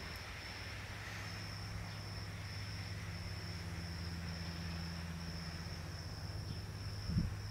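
Insects chirping in a steady high, pulsing trill over a low steady hum. A brief low knock comes near the end.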